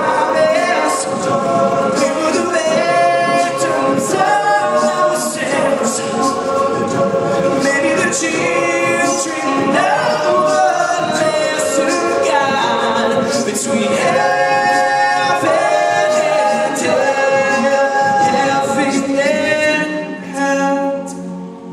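All-male a cappella group singing in close harmony, voices layered with a steady rhythmic pulse; the singing drops in loudness near the end.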